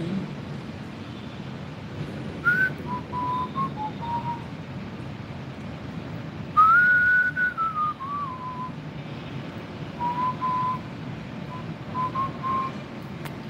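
A person whistling a slow tune in a few phrases of held notes, with one long high note about six and a half seconds in that slides down in steps.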